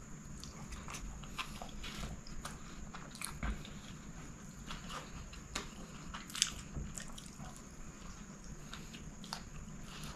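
Close-up chewing of chicken kottu roti, with many small mouth clicks and smacks throughout and one sharper click about six seconds in.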